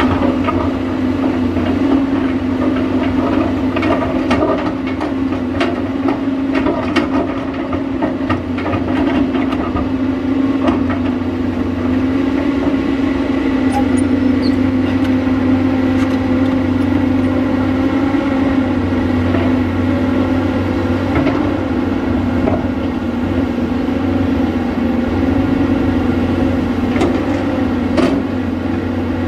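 Caterpillar 320D hydraulic excavator's diesel engine running steadily under working load as the bucket digs into rocky soil, with scattered knocks and clinks of stones against the bucket.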